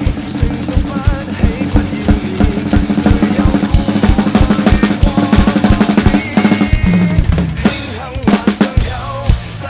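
Acoustic drum kit played live along to a backing track: kick, snare and cymbals hit in a busy groove, densest through the middle and thinning out near the end, over a steady bass line and melody from the track.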